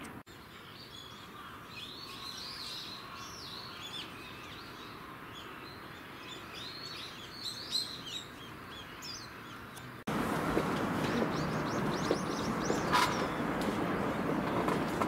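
Small birds chirping and twittering in quick short calls over a low steady rumble. About ten seconds in, an abrupt cut brings a louder rushing noise with scattered clicks and more chirps.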